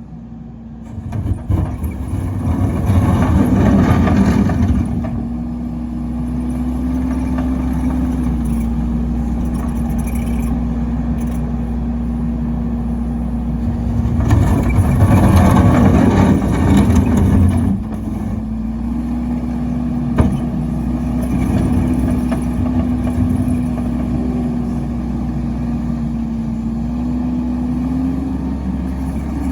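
Timberwolf Alpha6 log splitter's engine running steadily, with two louder stretches of a few seconds each, the first about a second in and the second about halfway through, as it works under load. There is a single sharp click about two-thirds of the way through.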